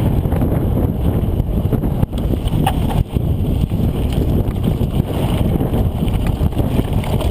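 Heavy wind buffeting on the microphone over a constant low rumble of movement down a rough trail, with a short high squeak a little under three seconds in.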